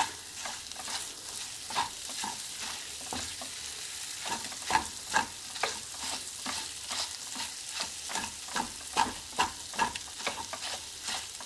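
Wooden spatula scraping and pressing moong dal paste around a nonstick kadai in frequent, irregular strokes, over a steady sizzle of the dal roasting in ghee.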